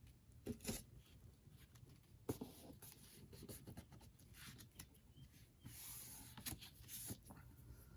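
Faint paper handling during hand bookbinding: soft rustles and light taps, with a brief rubbing sound about three-quarters of the way through.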